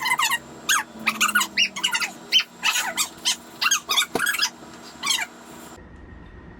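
A dog whining and yipping: a quick run of short, high-pitched whines, several a second, that breaks off suddenly near the end.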